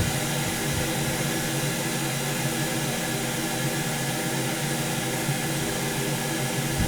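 Hot air rework station blowing steadily: an even airy hiss with a constant hum underneath.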